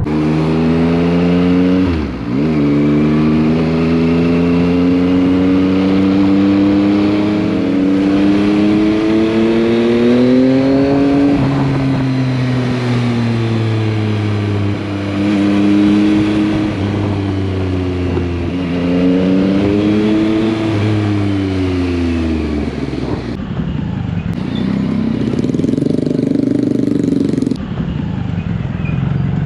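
Motorcycle engine heard from the rider's seat, its revs rising and falling slowly as it rides, with a quick drop and recovery about two seconds in. Near the end the engine settles to a lower, steadier running.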